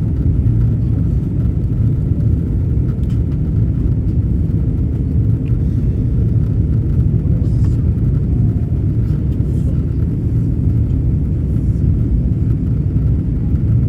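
Steady low rumble of an Airbus A330's engines and rushing air, heard from inside the passenger cabin on approach.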